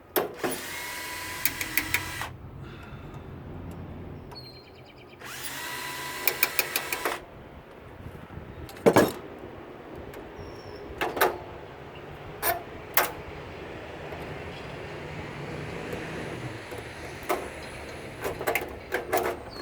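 Power drill whining in two bursts of about two seconds each, backing out the screws that hold a transformer inside a tankless water heater, followed by a string of sharp clicks and knocks as the parts are handled and come loose.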